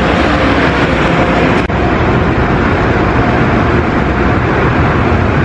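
Steady, loud vehicle and traffic noise in a gas-station lot, with one short click about a second and a half in.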